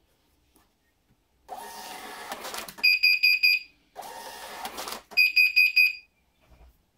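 Xprinter thermal receipt printer printing a receipt with a rasping whirr, then its buzzer giving four quick high beeps. The same print and four beeps come again about a second later.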